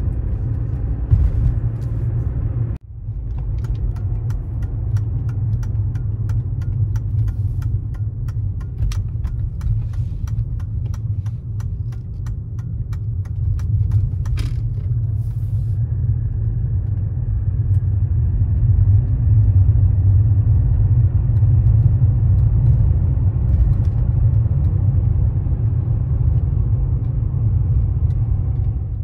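Interior sound of a 1994 Mercedes-Benz W124 E320 with its M104 straight-six under way: a steady low rumble of engine and road. A fast, regular ticking runs for about ten seconds from about three seconds in, and the rumble grows louder in the second half.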